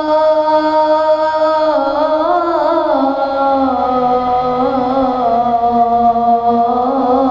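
A boy's voice chanting the adhan in the Kurdi mode, drawing out the closing 'Allahu akbar' in one long melismatic line. The note is held steady, ornamented with a quick waver about two seconds in, then steps down to a lower note and is held.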